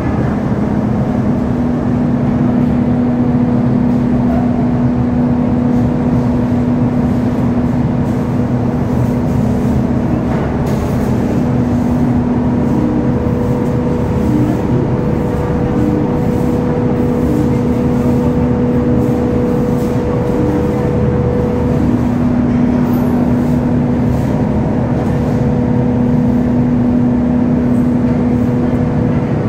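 Tea processing machinery running in a factory: a loud, steady mechanical hum with a constant low drone.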